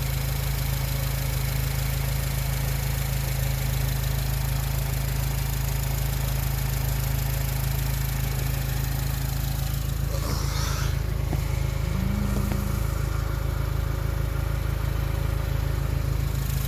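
2006 Acura car engine idling steadily, fitted with a newly installed aftermarket cold air intake. A brief higher wavering sound comes about ten seconds in.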